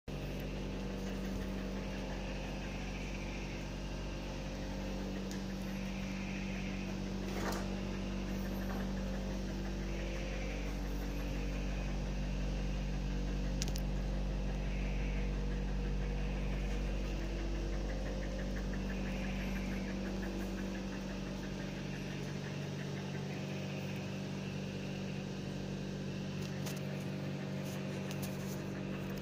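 A steady low mechanical hum with a few constant tones, like a small motor running without pause.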